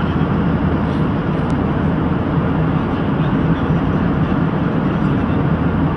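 Cabin noise of an airliner in flight: a steady, even rush of engine and airflow noise, heaviest in the low range.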